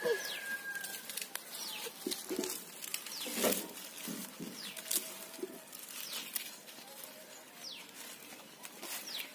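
Dry twigs and leaves rattling and snapping as they are handled and piled into a heap, with short falling bird chirps and a few low animal calls around.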